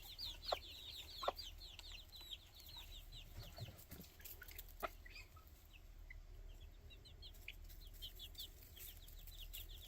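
Young chicks, about three weeks to a month old, peeping in quick runs of short, high, falling chirps. The runs thin out in the middle and pick up again near the end, with a few soft clicks among them.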